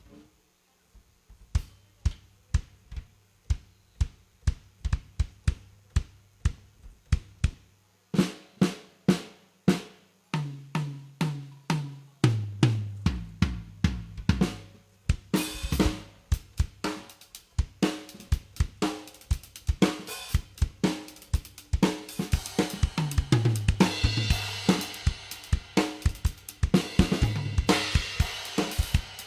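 Acoustic drum kit being sound-checked. It starts with evenly spaced single drum hits, about two a second, then moves to pitched tom hits stepping down from higher to lower. From about halfway through the full kit plays a groove with cymbals and hi-hat.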